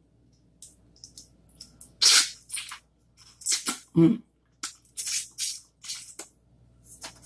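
Sucking and slurping the juice from a boiled crawfish, in a series of short hissy bursts, with a short hummed 'mm' about four seconds in.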